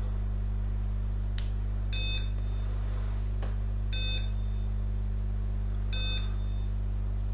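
Laser therapy unit beeping once every two seconds, three short high beeps, while its probe is emitting during a timed treatment. A steady low hum runs underneath.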